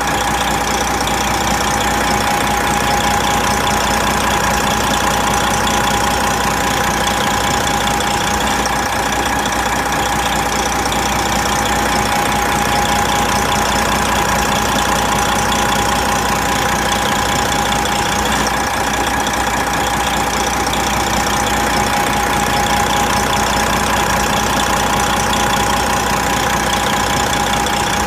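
Big truck's diesel engine idling steadily, with a constant high whine riding over the engine sound.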